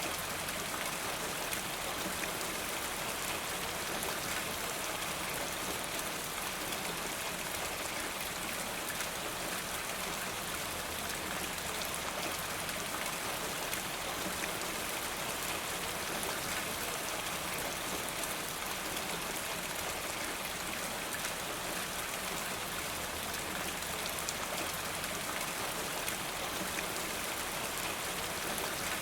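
Steady rain falling: a dense, even patter of individual drops, with water running off a rain gutter.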